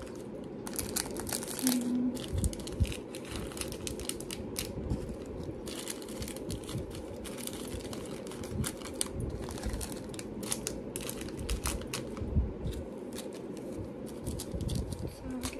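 Small plastic bags of jewelry findings crinkling and rustling as they are handled and sorted, with scattered light clicks throughout.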